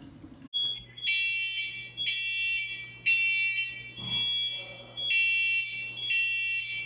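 Electronic alarm beeping in a high, multi-toned pattern, roughly one beep a second, starting about half a second in, over a low steady hum.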